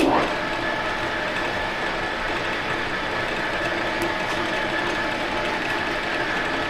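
Victor engine lathe running steadily with the spindle turning a small steel shaft in a collet chuck, a continuous machine drone and gear whine with no cutting yet.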